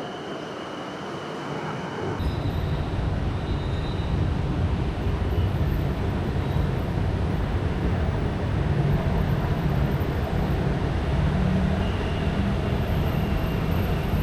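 Steady rumble of a moving vehicle heard from on board, with faint high whines above it, building up about two seconds in.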